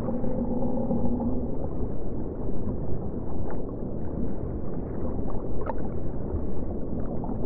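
Low, muffled underwater rumble with a held drone that fades about a second in, and a few faint clicks.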